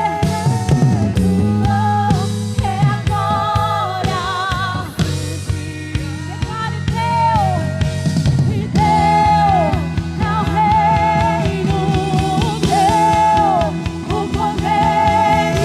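Rock-style music: a lead melody of long held notes with a wavering vibrato, over a steady bass line and a regular drum beat.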